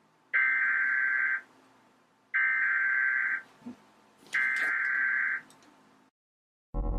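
Electronic telephone ringing three times, each high-pitched ring about a second long with a second's pause between.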